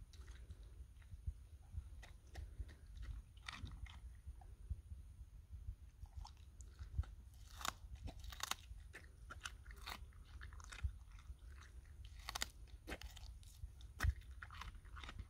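A borzoi eating watermelon from the rind: irregular crunching bites and chewing, with a few sharper crunches standing out.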